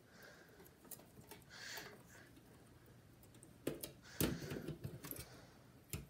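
Faint handling noises from a metal desktop drive cage and its cables being worked by hand: rustling with scattered small clicks, and a couple of sharper knocks a little before and just after four seconds in.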